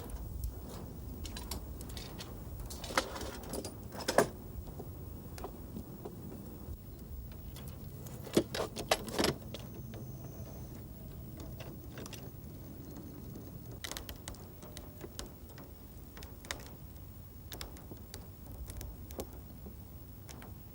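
Scattered sharp knocks and clicks of hand work, with a few louder ones about three to four seconds in and again about eight to nine seconds in, over a low steady rumble.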